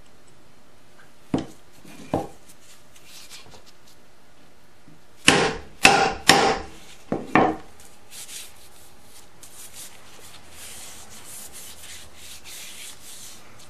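A steel chisel with a wooden handle knocking on a wooden workbench as it is picked up, turned and set down: two single knocks, then a quick run of about five near the middle. Near the end there is faint rubbing as hands work over the freshly oiled handle.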